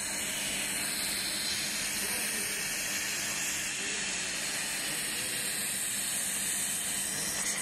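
Handheld fiber laser welding head running along a tube-to-plate joint: a steady hiss of shielding gas blowing from the nozzle over the weld, with a faint low machine hum underneath.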